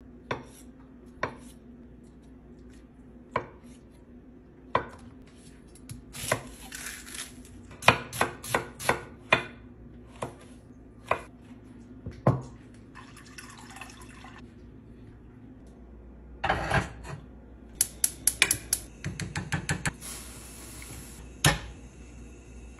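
Kitchen knife cutting food on a wooden cutting board: sharp knocks spaced a second or two apart at first, then quicker runs of several cuts.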